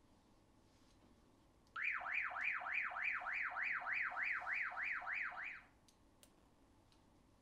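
Retevis RT28 walkie-talkie's speaker sounding a repeated falling electronic tone, about three and a half sweeps a second for about four seconds, then stopping abruptly. It sounds as the radio is switched on with the PTT and side button held, the way the VOX function is toggled.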